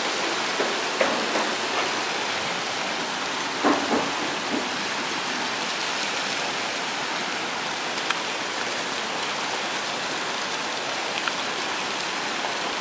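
Heavy rain pouring down onto pavement and parked cars as a steady, dense hiss. A few brief louder splats stand out, the clearest about four seconds in.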